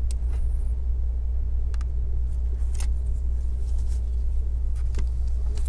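Steady low hum or rumble throughout, with a few faint clicks and taps from hands handling the laptop's screen panel.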